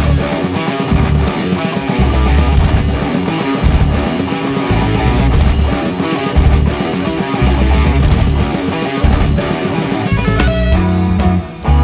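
Instrumental progressive metal: heavy electric guitar riffing over bass and drums, with a pulsing low end. The band drops out briefly near the end.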